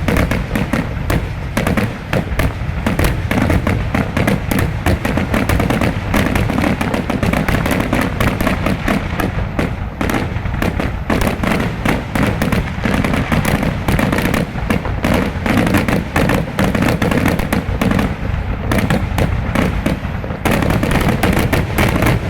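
Fireworks finale: aerial shells bursting in a rapid, continuous barrage, the booms overlapping with crackling, growing denser near the end.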